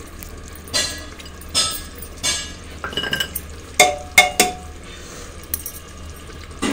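Metal spatula-ladle clinking and scraping against the inside of an aluminium pressure cooker while curry is stirred: a string of about eight short knocks, some ringing briefly.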